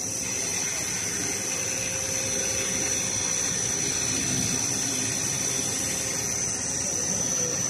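Roll cutting machine running as it slices a rotating roll of yellow film into short rolls: a steady mechanical noise with a constant high whine.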